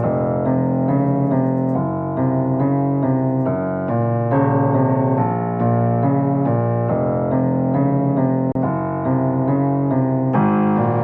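Background music played on a keyboard, a steady run of evenly repeated notes.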